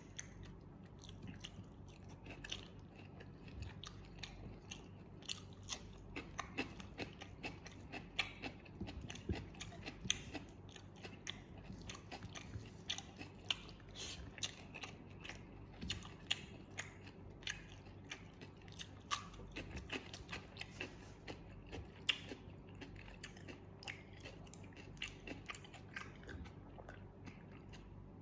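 Close-up mouth sounds of someone eating fried catfish with sambal: biting, chewing and many short, irregular crunches all through.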